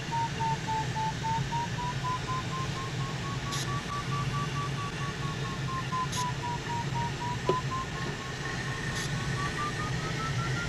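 Glider variometer beeping in quick, even pulses, its pitch drifting up and down with the climb rate and rising near the end: the sign of the glider climbing in wave lift. A steady rush of airflow over the canopy runs underneath.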